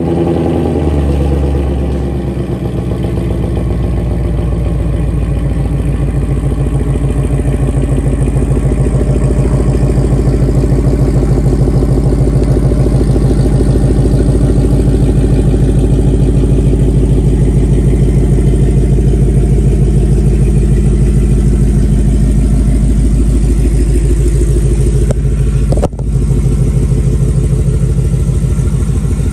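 A 2021 Ford Mustang running on E85, idling steadily through its quad-tip exhaust while it warms up after a cold start. Near the end there is a brief dip and a single knock.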